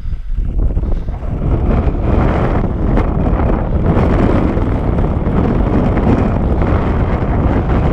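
Loud wind buffeting the microphone, a steady low rumbling noise that holds without a break.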